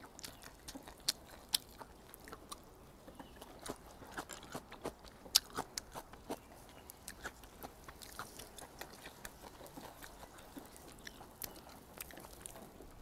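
Close-miked chewing of grilled hagfish: soft, irregular clicks and small crunches, a few to several a second.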